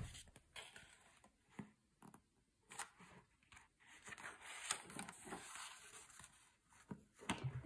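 Pages of a hardcover picture book being turned by hand: faint paper rustling with a few soft flicks.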